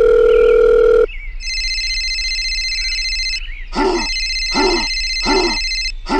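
Added telephone sound effects: a steady phone tone that stops about a second in, then an electronic ringing tone for about two seconds. Four short, identical sound effects follow, each dropping in pitch, about three-quarters of a second apart.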